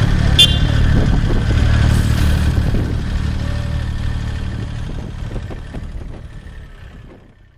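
Old fire truck's engine running as it pulls away, with a brief high-pitched squeak about half a second in; the rumble slowly fades out to nothing.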